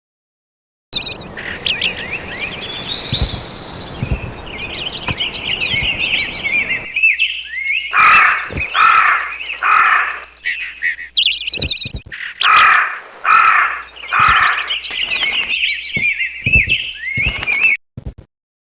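Birds chirping and singing, with a louder, lower call repeated four times, about half a second apart, twice partway through. The sound cuts off suddenly near the end.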